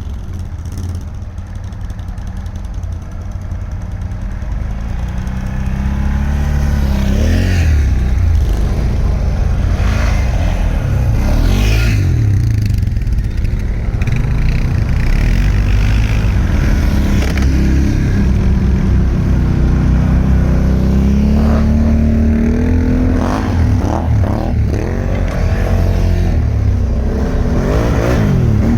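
ATV engine running under load, its pitch rising and falling again and again as the throttle is opened and eased.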